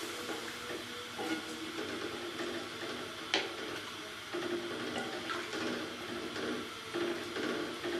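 Wooden slotted spatula stirring watery chicken masala in an aluminium pot, the liquid swishing over a steady hiss from the heating pot. One sharp tap about three seconds in.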